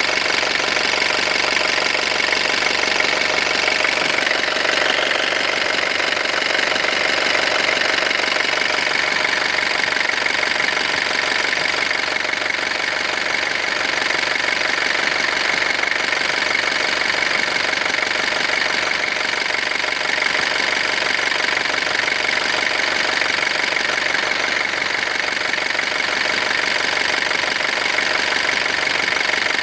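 Kia Pregio van engine running steadily with a rapid knocking clatter, which the owner suspects comes from bad injectors.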